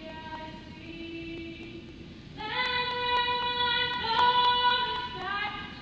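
Choir singing a gospel song in long held notes, swelling much louder about two and a half seconds in.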